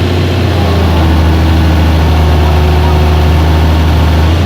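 Heavy equipment's engine running steadily with a constant low hum.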